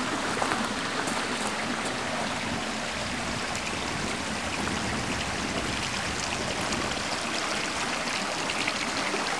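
Small garden stream flowing over rocks: a steady rush of water.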